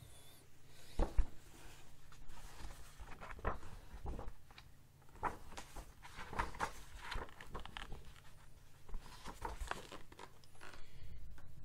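A book being handled: pages rustling and flipping, with irregular knocks and bumps as it is moved on a table and lifted. A sharp knock about a second in is the loudest.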